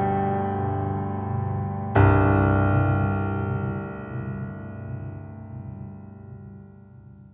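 Background music: a sustained keyboard chord rings and decays. A new chord is struck about two seconds in and slowly fades away.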